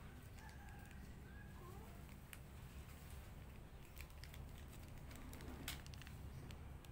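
Faint crinkles and small clicks of a little clear plastic jewelry bag being handled and peeled open, over a low steady hum.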